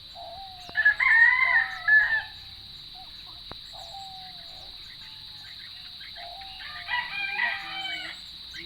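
A rooster crowing twice: a loud crow about a second in, and a second, more broken crow near the end. A steady high-pitched drone runs underneath.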